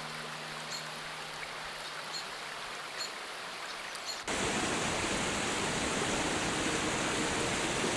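Mountain stream rushing over boulders: a soft, steady rush of water with faint high chirps, jumping suddenly to a much louder, even rush about four seconds in.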